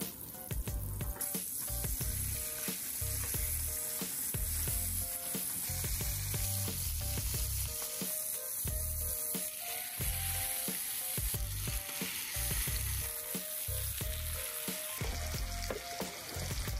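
Butter and slices of hanwoo beef sizzling on a hot electric griddle, a steady hiss.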